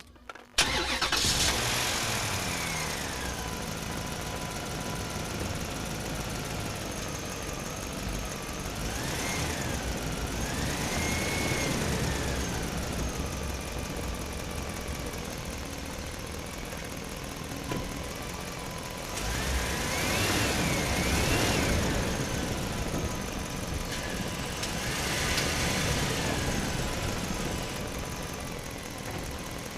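Truck engine starting: it catches almost at once and settles into a steady run, then is revved several times, the pitch rising and falling.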